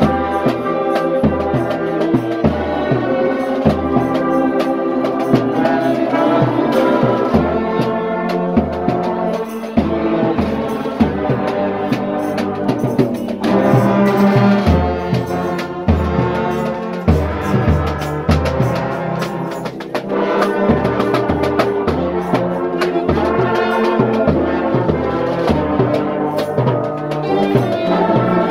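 Church brass band playing: trombones, trumpets and sousaphones sounding a hymn-like tune together over a bass drum keeping a steady beat.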